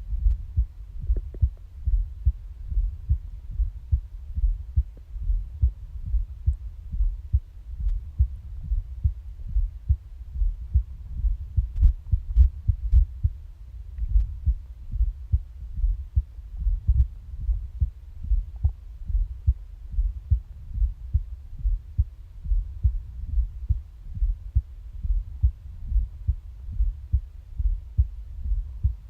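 Human heartbeat recorded up close: a regular run of low thumps. Brief, faint stomach gurgles come about a second in and again past the halfway point.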